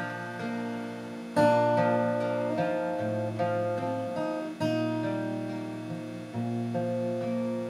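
Acoustic guitar played solo with no voice: chords struck about a second and a half in, again near five seconds and near six and a half seconds, each left ringing and fading, with bass notes underneath. These are the instrumental closing bars after the song's last sung line.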